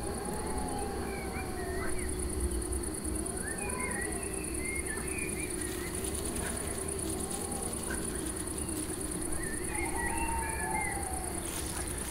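Night-time woodland ambience: scattered short squeaky chirps and a few longer whistled notes over a steady, high-pitched pulsing trill and a low rumble.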